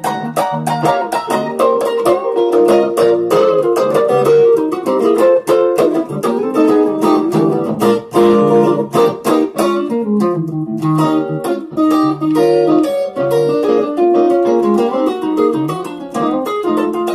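Stratocaster-style electric guitar played through a Zoom G1on multi-effects pedal: a B flat blues lead line of many quick picked single notes.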